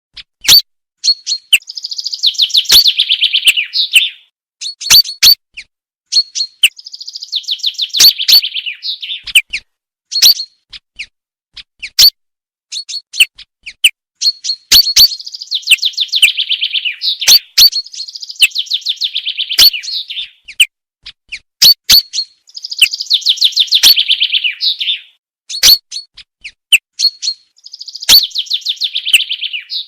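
Common chaffinch song, repeated about six times. Each phrase is a fast trill falling in pitch and ending in a flourish, with short, sharp single call notes in the gaps between songs. It is a lure recording that merges two chaffinch sounds for bird hunting.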